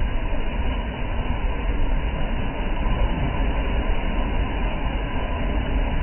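Sea waves breaking and surging among the concrete tetrapods of a breakwater: a steady rushing wash of surf with a deep rumble underneath.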